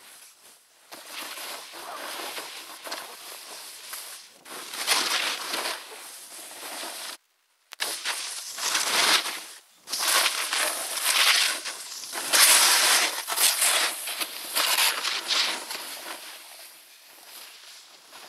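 A snowboard sliding and carving through snow: a rough scraping hiss that swells with each turn and fades between turns, loudest in the second half. The sound cuts out completely for a moment about seven seconds in.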